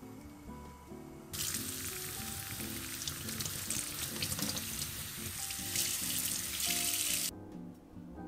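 Kitchen tap running onto a stainless mesh strainer as food is rinsed in it. The water noise starts abruptly about a second and a half in and stops abruptly about a second before the end, over background music.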